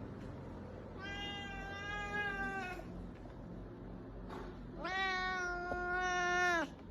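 A cat meowing twice: two long, drawn-out meows of about two seconds each, the second one louder.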